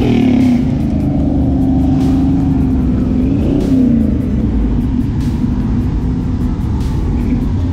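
A car engine running, its revs rising and falling twice, with background music.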